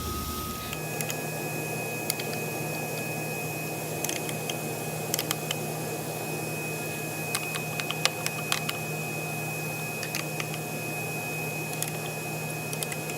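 Scattered small metallic clicks and taps as hold-down clamps are tightened onto a thin brass strip on a CNC router table, with most of the clicks in two bunches near the middle. Under them runs a steady low hum.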